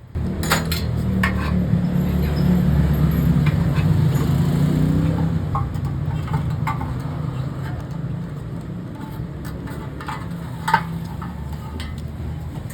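A motor vehicle engine running close by as a steady low rumble, with a few scattered sharp clicks and knocks, the loudest about ten and a half seconds in.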